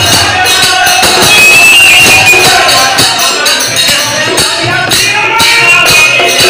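Live group music: voices singing over a steady rhythm of hand-played percussion with jingling cymbals, loud and close.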